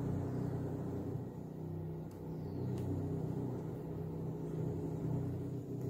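A steady low hum made of several even low tones, with two faint small clicks about two and three seconds in.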